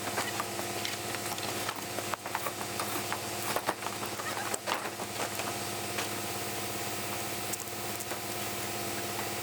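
Engine of the concrete pumping equipment running at a steady drone, with scattered knocks and clicks, the loudest a few seconds in.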